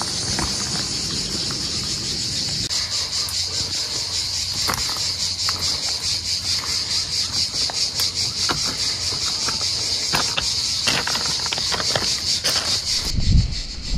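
Chorus of cicadas buzzing in a rapid, even pulse, with scattered sharp clicks of loose limestone scree shifting underfoot. Near the end a low rumble of wind on the microphone comes in.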